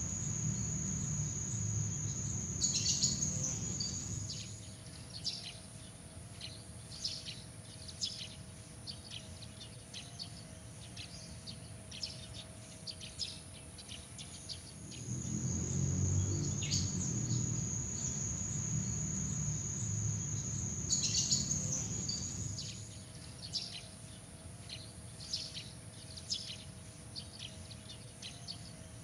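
Night nature ambience: a steady, high-pitched insect trill with many short, scattered chirps over it. The trill changes to a higher pitch a few seconds in and again near the end, and a low rumble comes in for the first four seconds and again for about seven seconds in the middle. The pattern repeats once.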